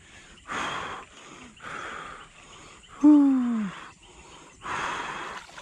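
A person breathing hard in short puffs, with one drawn-out vocal groan that falls in pitch about three seconds in, the loudest sound.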